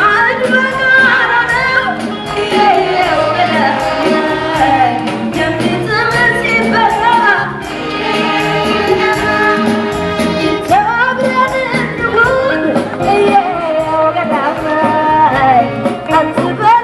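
A woman singing through a microphone over amplified backing music, her voice wavering and ornamented.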